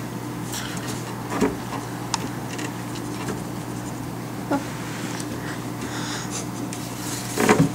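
A steady low hum with a few short clicks and knocks scattered over it, the loudest couple close together near the end.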